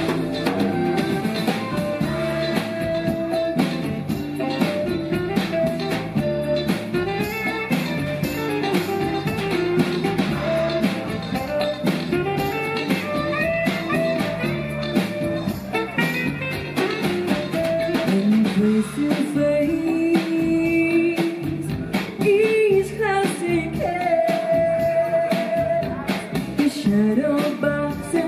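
Live pop-rock music: a drum kit keeps a steady beat under a singing melody.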